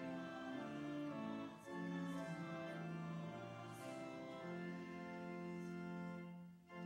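Hymn tune played on organ in sustained chords that move from note to note. The music breaks off briefly about six and a half seconds in, between stanzas.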